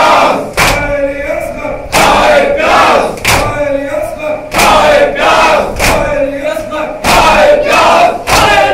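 Group of mourners doing matam: chanting a lament together while striking their chests in unison, a loud, sharp slap about every second and a quarter.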